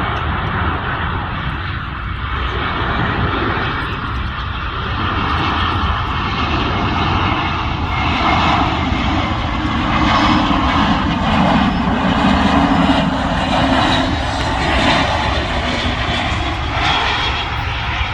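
Jet airliner passing, a loud rush of engine noise with a low rumble that swells to its loudest about two-thirds of the way through, then eases slightly.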